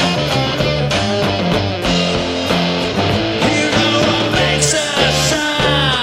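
Rock trio playing: electric guitar, bass guitar and drum kit, with the drums keeping a steady beat under sustained bass and guitar notes.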